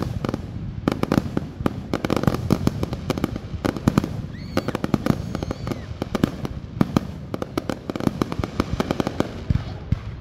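Aerial firework shells launching and bursting in quick succession: a dense run of bangs, booms and crackles, with a brief let-up about four seconds in.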